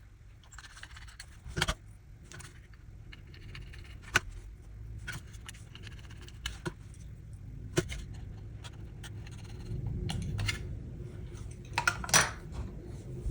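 Light metallic clicks and taps from a small Torx T6 screwdriver and tiny steel mounting screws being fitted into the side of a 2.5-inch SSD. The clicks come at irregular intervals, with a few sharper ones, the loudest near the end.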